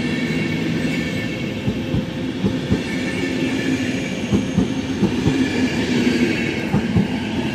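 PKP Intercity passenger coaches rolling past, a steady rumble with their wheels knocking irregularly over rail joints and faint high steady tones above it.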